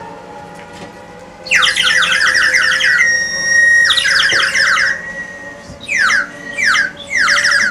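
Plastic bird whistle blown close into a microphone: a loud, high, fast warbling trill starts about a second and a half in, breaks into a held steady whistle tone, warbles again, then sounds in three short bursts near the end.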